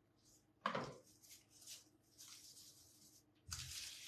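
Faint rustling of baking paper as a round of beignet dough is handled, in short scattered bursts with a louder one near the end.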